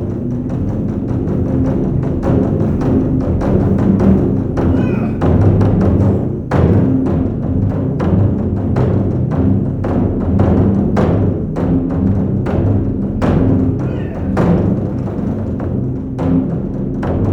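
Music with drums and other percussion: a steady run of struck beats over sustained low pitched notes.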